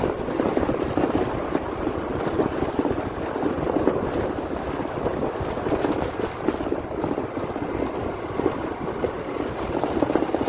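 Wind buffeting the microphone on a moving motor scooter: a steady, fluttering rush, with the scooter's running and tyre noise underneath.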